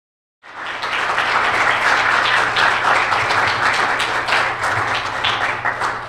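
Audience applauding: a dense, steady patter of many hands clapping that starts about half a second in and eases slightly near the end.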